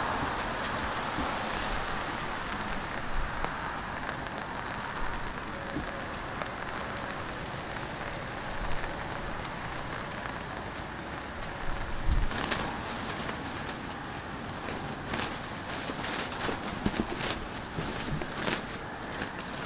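Steady summer rain falling, a continuous hiss, with scattered heavier drops tapping sharply close by from about twelve seconds in.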